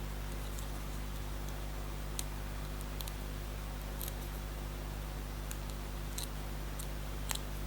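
Faint scattered clicks and light rustles of small paper craft pieces and foam adhesive pads being handled on a desk, over a steady low electrical hum.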